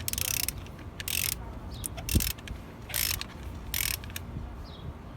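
Hand ratchet with an extension and spark plug socket clicking in about five short bursts, one per back-swing, as a spark plug is tightened down until snug.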